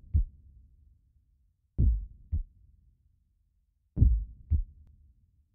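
Heartbeat sound effect: pairs of deep thumps about half a second apart, repeating slowly about every two seconds.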